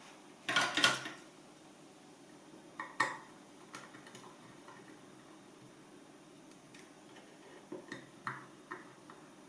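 Small metal clinks and clicks of tools and wire terminals being handled. The loudest is a short clatter about half a second in, then one sharp click about three seconds in, and a few light ticks near the end.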